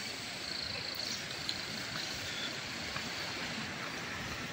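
Steady rustling and footsteps of someone walking through tall grass, with an insect's high, thin buzz that fades out after about a second and a half.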